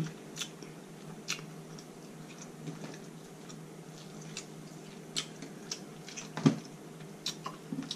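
Scattered small cracks and clicks of king crab leg shell being broken open and picked apart by hand, with one louder knock about six and a half seconds in, over a faint steady hum.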